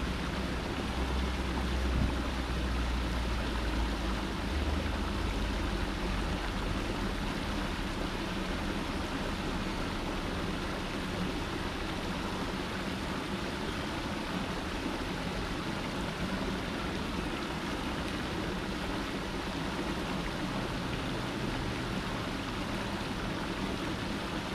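Small cascade of water spilling over rocks into a still pool, a steady, even rush of water. A low rumble sits under it for the first few seconds.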